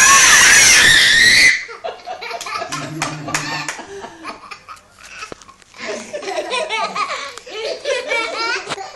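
Children and adults laughing: a loud burst in the first second and a half, then lighter, broken giggling and chuckling.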